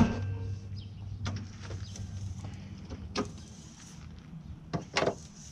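Hood of a Toyota 4Runner being opened: a sharp metallic clank with a brief ring as the latch releases, then a few scattered knocks and clicks as the hood is raised and propped on its rod, the loudest pair near the end.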